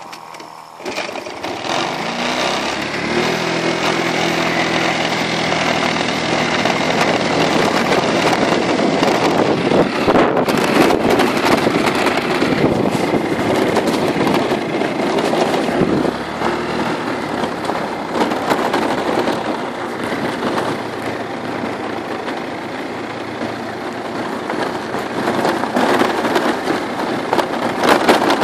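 Motor scooter engine starting up about a second in and revving with a rising pitch, then running on under way.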